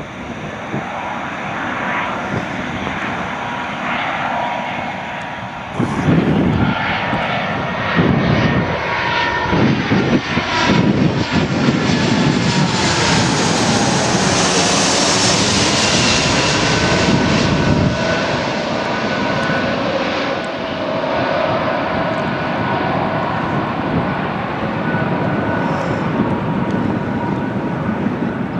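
Jet airliner flying past low on approach to land. Its engine noise swells from about six seconds in, is loudest around the middle with a hiss sweeping in pitch as it passes, then slowly fades. Gusts of strong wind buffet the microphone early on.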